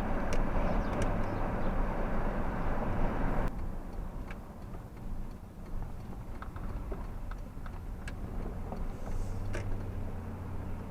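Vehicle noise heard from inside a car: a steady rumble that drops away abruptly about three and a half seconds in. A quieter low hum follows, with scattered light ticks.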